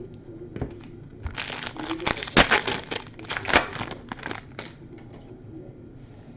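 Trading card pack wrapping crinkling and tearing as it is opened by hand, a busy run of sharp crackles lasting about three seconds.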